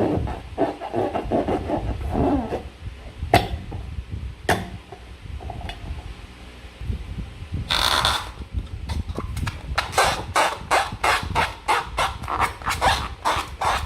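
Hands working slime and balloons. First a rubbing, squishing noise, then two sharp clicks and a short hiss about eight seconds in. After that come quick regular clicks, about three or four a second.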